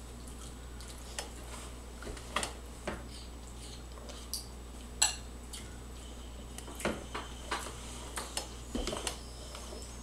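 Scattered light clinks and taps of dishes and cutlery in a small room, the sharpest a single ringing clink about five seconds in, over a low steady hum.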